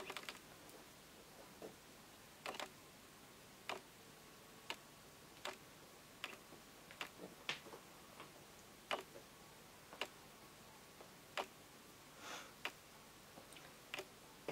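Light, irregular clicks and ticks, roughly one or two a second, from rubber loom bands being stretched and pulled over a metal loom hook between the fingers.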